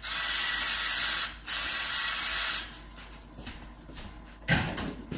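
Handheld sprayer spritzing a liquid onto smoked beef ribs: two long hissing sprays of about a second each, then it stops. A short rustling noise near the end.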